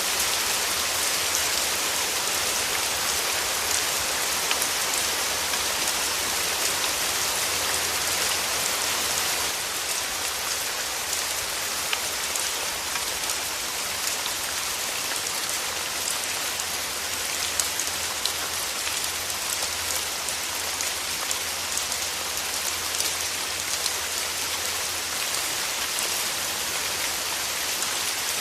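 Steady rain falling: a dense hiss of drops with scattered sharper drips. It eases slightly about ten seconds in.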